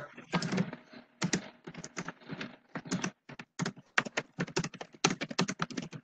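Typing on a computer keyboard: a run of quick, irregular key clicks, picked up through a video-call microphone.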